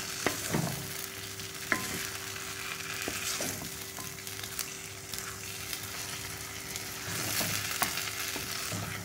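Thick semolina halwa sizzling in ghee in a kadai as a spatula stirs and scrapes it, with a few sharp clicks of the spatula against the pan. The halwa is at the stage where it comes away from the sides of the pan, the sign that it is done.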